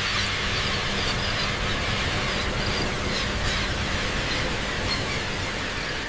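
A dense, continuous chorus of high-pitched squeaks and chirps from a huge flock of bats in flight, over a low steady hum.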